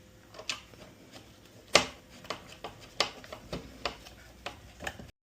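Hand screwdriver driving a screw into a plastic radio fascia: a run of irregular small clicks and creaks, one sharper click a little under two seconds in.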